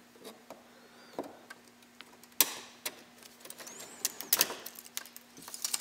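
Small flush cutters snipping the tails off nylon zip ties, a few sharp clicks with the loudest about two and a half seconds in, among light clicking from handling the plastic parts.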